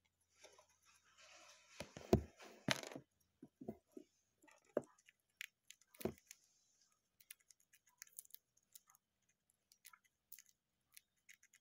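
A hamster nibbling and cracking seeds: scattered small clicks and crunches, with a few soft knocks in the first half.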